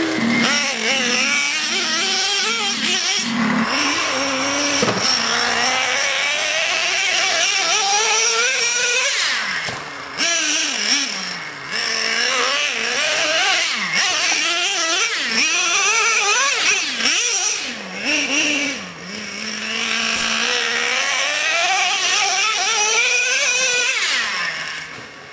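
Traxxas Revo RC monster truck's small nitro engine buzzing, its pitch rising and falling over and over as the throttle is opened and closed, with brief easings off now and then.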